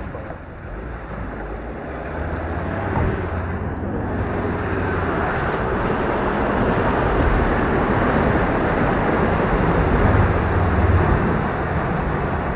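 Ford Ranger pickup's engine running under load as it drives through deep mud ruts, with muddy water splashing and sloshing around the wheels. The sound grows louder over the first few seconds and then holds steady.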